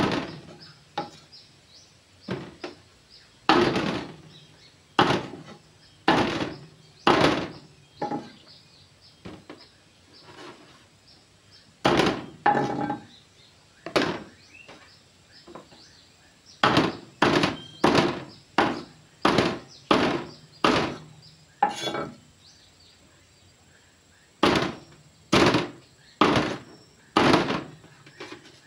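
Meat cleaver chopping a fish on a wooden chopping board: a series of sharp chops, roughly one a second, coming in runs with short pauses between them.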